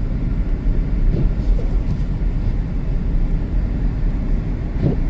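Steady low rumble of a Ford Edge SUV driving, as heard from inside the cabin: tyre and road noise mixed with the engine.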